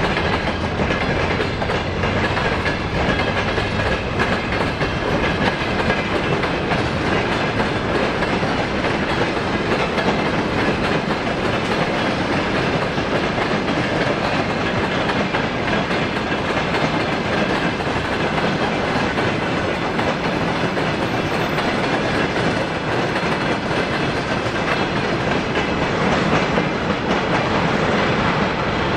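Freight train of tank cars and wagons rolling past close by, with a steady noise of wheels on rail.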